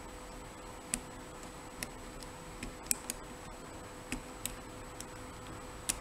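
Light, irregular ticks, about seven over a few seconds, from a steel lock pick working the pins inside a dimple lock cylinder held under tension, over a faint steady hum.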